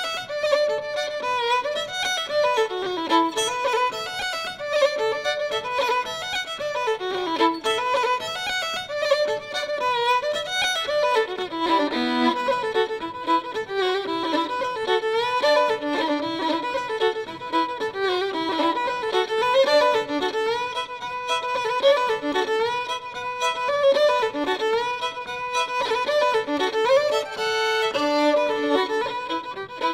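Background music: an instrumental tune with a quick, busy melody that plays without a break.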